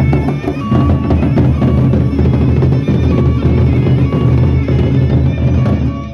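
Gendang beleq ensemble playing: large Sasak double-headed barrel drums beaten in a dense, driving rhythm, with hand cymbals clashing over them.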